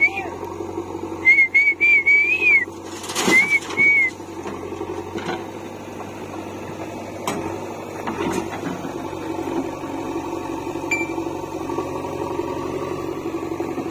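A person whistles a string of short, high notes during the first four seconds, over the steady idle of a tractor and a backhoe loader's diesel engines.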